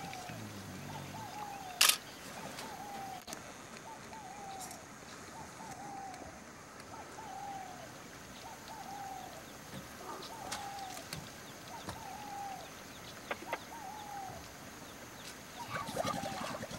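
A bird calling the same short falling note over and over at an even pace, about three calls every two seconds. A single sharp click about two seconds in is the loudest sound.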